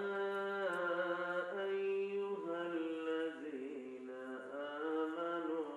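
A man's voice chanting in long, held melodic notes through microphones, the pitch stepping to a new note about every second, in the style of a melodic Islamic recitation.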